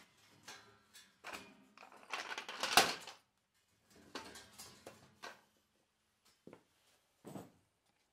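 Steel auger assembly of a 42-inch two-stage snowblower clanking and knocking as it is pulled out of its housing and set aside: scattered knocks, the loudest clatter about two to three seconds in, then a few lighter knocks.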